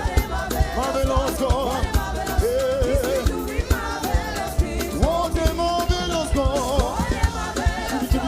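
Live gospel praise music: singing over a band with a busy, steady drum beat.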